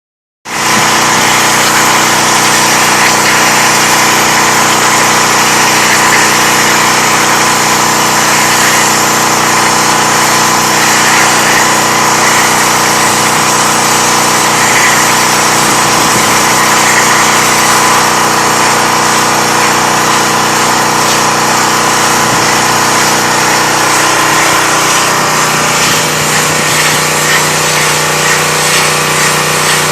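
Pressure washer running, a steady motor hum under the loud hiss of the water spray, starting suddenly just after the beginning. The motor's note shifts lower about 25 seconds in.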